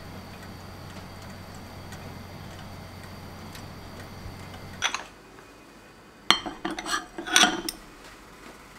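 Electric broiler running with a steady electrical hum and faint high whine, which stops with a click about five seconds in. Then a few sharp ceramic clinks and clatters as the small cooking pot is handled and set onto its plate.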